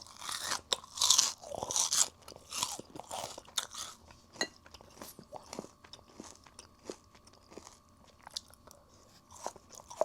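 Close-up crunching and chewing of crispy fried chicken: loud crackly bites in the first few seconds, then softer chewing with small wet clicks.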